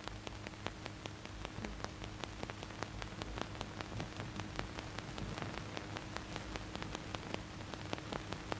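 Surface noise of an old, worn 1970s film soundtrack: a steady hiss crowded with irregular clicks and crackle, over a low steady hum.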